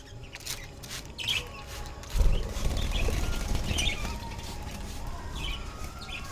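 Budgerigars chirping while bathing, with a loud rush of splashing and wing fluttering starting about two seconds in.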